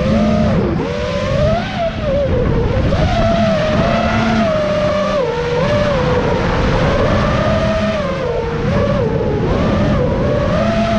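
FPV racing quadcopter's brushless motors and propellers whining. The pitch keeps rising and falling with throttle, with a sharp dip about a second in.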